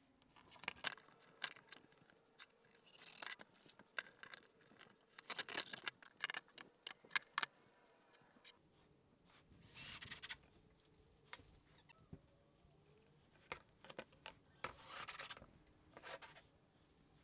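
Wooden pieces being handled on a plywood workbench: scattered knocks and clicks, with a few short scrapes as wood slides on wood.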